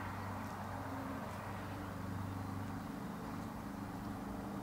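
Quiet outdoor background: a steady low hum with a couple of faint, short bird chirps.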